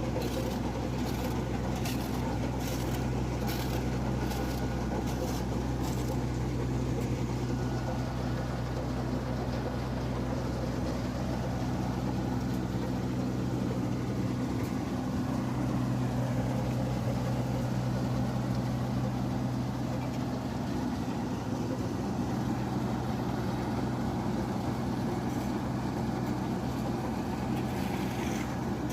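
Heavy diesel engine of a Wirtgen road milling machine running steadily under load. A quick run of ticks, about two a second, sounds over the first six seconds.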